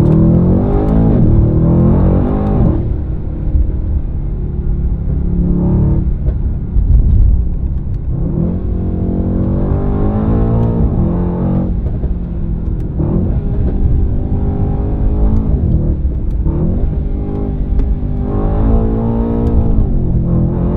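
2017 Mercedes-AMG E63 S twin-turbo V8 accelerating hard through the gears, its pitch rising and dropping back again and again at each upshift over a deep, steady exhaust note.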